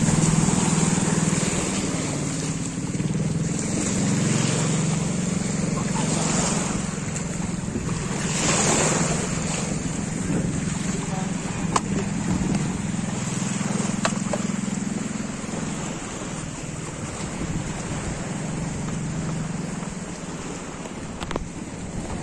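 Sea water washing and churning, with wind on the microphone and a steady low drone. A few sharp clicks come through now and then.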